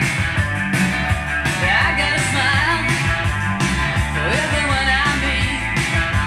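A rock-and-roll song with singing, bass and drums, played from a vinyl record on a Sanyo TP 1020 direct-drive turntable and heard through the room's loudspeakers.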